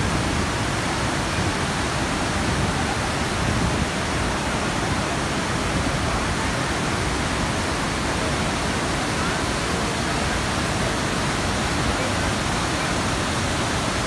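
A waterfall swollen with monsoon floodwater, pouring heavily: a loud, steady, unbroken rush of falling water.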